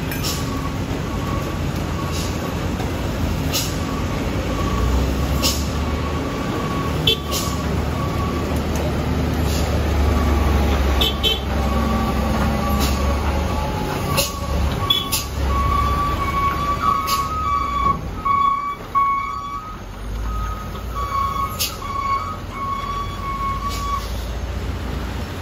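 Heavy container trucks' diesel engines labouring at low speed up a steep wet hairpin, a deep steady rumble with tyres hissing on the wet road. A high beeping tone pulses on and off through the second half, and sharp ticks are scattered throughout.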